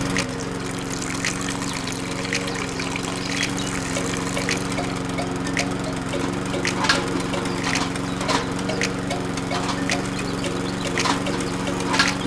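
Small electric motor of a miniature toy machine running with a steady hum, with liquid splashing and trickling and occasional light clicks over it.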